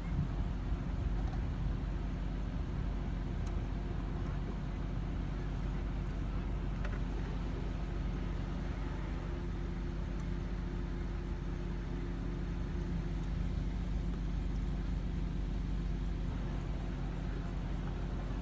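Steady low hum of a motor vehicle engine running at an even pitch, with a few faint ticks.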